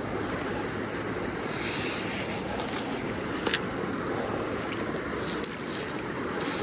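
Freestone river running fast over a gravel riffle: a steady rush of water, with a couple of faint ticks in the middle.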